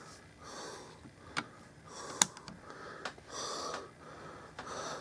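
Breathing close to the microphone, swelling about every second and a half, while a cardboard tablet box is handled. There are two sharp taps from the box a little over a second and about two seconds in; the second tap is the loudest sound.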